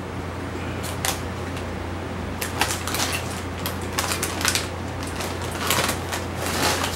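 Bag of potato chips being torn open and handled, its crinkly packaging crackling in quick bursts from about two and a half seconds in, over a steady low hum.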